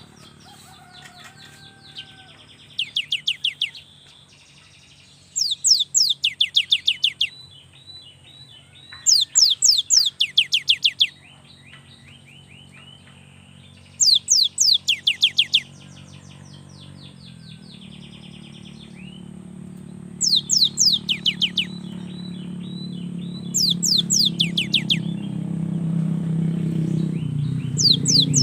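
Cinereous tit (gelatik batu) singing: bursts of about eight rapid, high notes, each sweeping downward, repeated every few seconds, with softer chirps between. A low engine hum grows louder over the second half.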